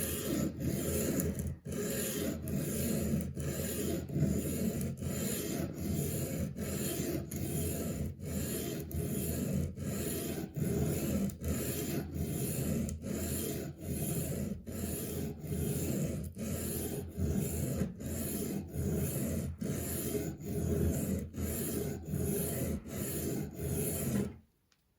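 1095 carbon-steel knife blade drawn back and forth across a wet 300-grit diamond plate of a Work Sharp guided sharpening system: a steady rasping scrape in quick, even strokes that stops near the end.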